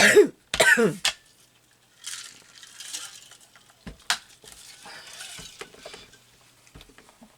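A brief burst of a woman's voice in the first second, then soft rustling of craft supplies being handled, with a couple of sharp light clicks about four seconds in.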